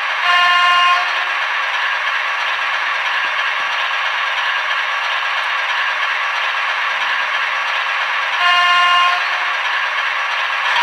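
Sound-equipped TT model diesel locomotive, a Piko BR 130, sounding its horn twice, briefly about half a second in and again near the end, over steady running noise of the model on the track, thin and without bass as from a small onboard speaker.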